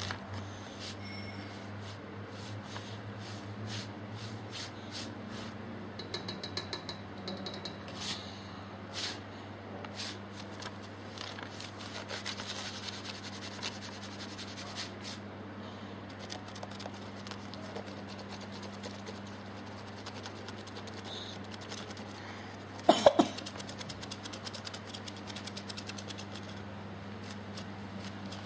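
A kitten playing on carpet around a plastic wheeled toy: scattered light taps, clicks and scuffles over a steady low hum. A short cluster of loud knocks comes about two-thirds of the way through.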